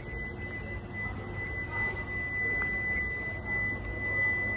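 A single steady high-pitched electronic tone, held unchanged for about five seconds and cutting off just after the end, over low background noise.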